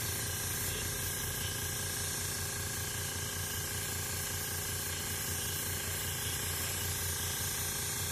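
Paasche airbrush spraying onto leather: a steady hiss of compressed air, with a low hum underneath.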